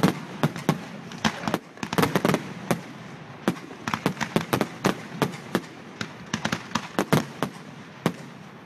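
Aerial fireworks bursting: clusters of sharp bangs in quick succession, with brief lulls about three seconds in and again about six seconds in.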